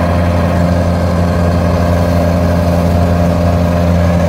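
Kubota DC-93 combine harvester's diesel engine running steadily at a constant speed, a loud, even low hum.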